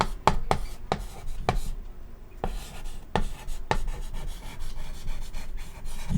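Chalk writing on a chalkboard: an irregular run of sharp taps and short scraping strokes as letters are written.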